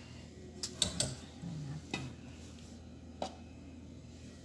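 Metal kitchen utensils clinking against an aluminium pot of cupcake batter: a handful of sharp, separate clinks, three close together about a second in, then one at about two seconds and one at about three seconds.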